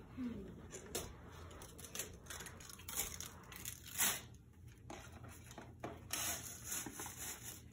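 Gift-wrapping paper and gift bags rustling and crinkling as presents are handled and opened, in irregular bursts, the loudest about four seconds in.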